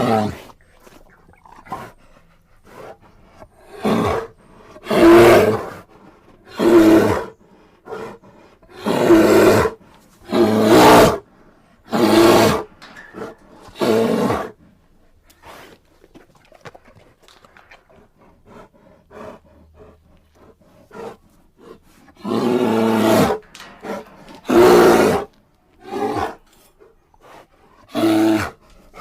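A bear roaring and growling in a series of short, rough bellows, each about half a second to a second long. They come in two bunches with a quiet pause of several seconds between them.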